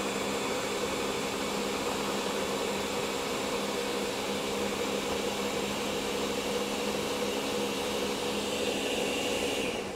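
Ninja countertop blender motor running steadily, pureeing chopped celery into a smooth slurry, then stopping near the end.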